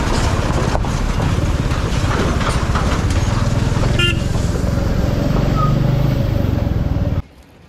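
Royal Enfield Classic 350's single-cylinder engine running while riding over a gravel road, with wind rumble on the microphone, and one short horn toot about four seconds in. The sound drops away suddenly to a much quieter background near the end.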